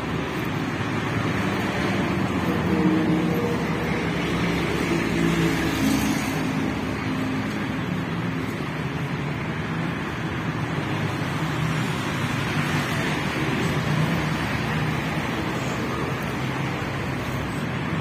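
City street traffic: a steady wash of road noise from passing cars. An engine hum swells during the first half and again a little after the middle.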